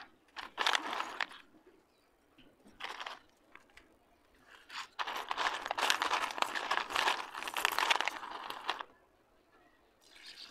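Dry slate pencil sticks clattering and rattling against each other in a plastic bowl as hands stir through them: a few short bursts, then a long run from about halfway. Just before the end, water starts pouring onto them.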